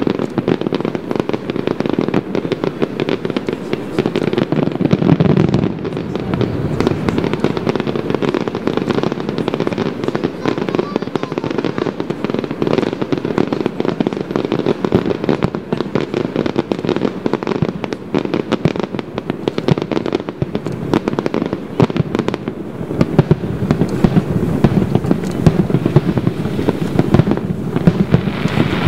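Festival aerial fireworks going off in a dense, unbroken barrage of booms and crackles.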